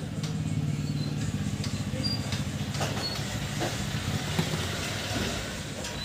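A steady low rumble, with a few sharp clicks near the middle as side cutters snip through the burnt red wire of an inverter's charging jack.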